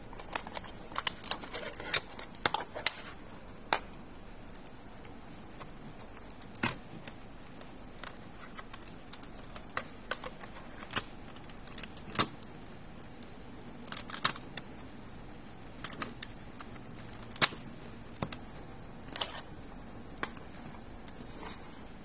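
Plastic cassette case and Panasonic RQ-A270 radio cassette recorder being handled: scattered sharp plastic clicks and clacks, a quick cluster in the first few seconds, then single snaps every second or two.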